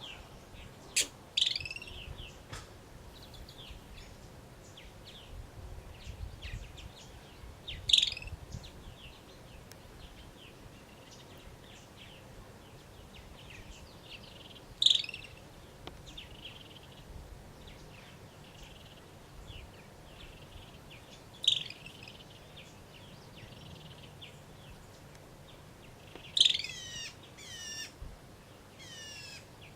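Franklin's ground squirrels giving odd high chirping calls after a scuffle in which one knocked the other over. A loud, short call comes about every six or seven seconds with softer chirps between, and near the end a quick run of falling sweeps.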